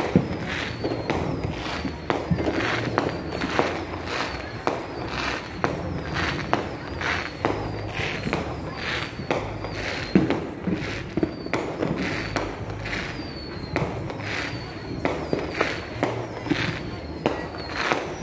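Neighbourhood fireworks and firecrackers popping and banging again and again, with a louder bang about ten seconds in. Music plays in the background.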